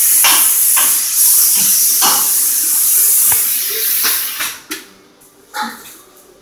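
Loud, steady hiss of a tool cutting through a Sea-Doo Spark's exhaust pipe, with a few sharp knocks. It stops about four seconds in, and a couple of brief knocks follow.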